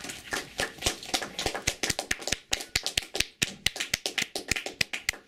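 A few people clapping: quick, uneven handclaps, several per second.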